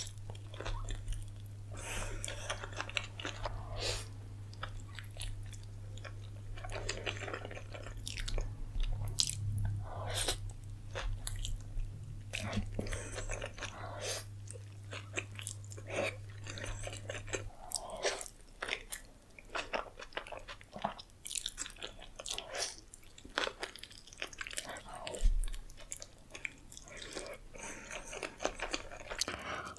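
Close-miked chewing and biting of a toasted tortilla burrito: irregular wet mouth clicks and soft crunches of the tortilla as it is bitten and chewed.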